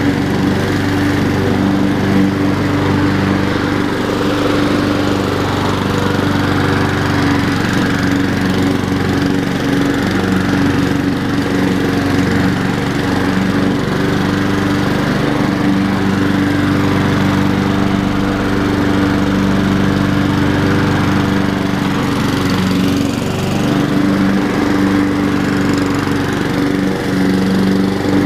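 Honda HRR216 walk-behind lawn mower's single-cylinder engine running steadily while it cuts grass.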